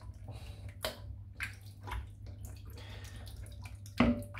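Shaving brush working a thick shaving-soap lather: irregular wet, squelching strokes. A single sharp knock with a short ring comes near the end.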